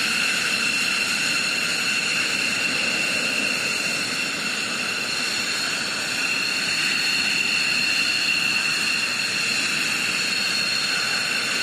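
F-15E Strike Eagle's twin jet engines running at taxi power: a steady high-pitched whine over a rushing hiss.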